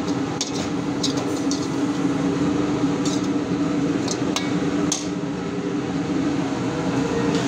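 Steel ladle clinking and scraping against a metal pan as shredded cabbage is tossed and mixed: a handful of short sharp clinks scattered over a steady background hum.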